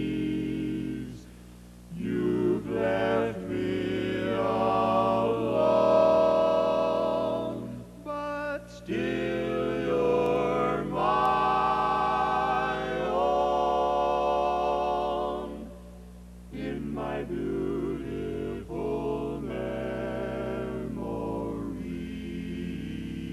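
Vocal music on the soundtrack: singing voices holding long notes with vibrato. There are short lulls about a second in and again about sixteen seconds in.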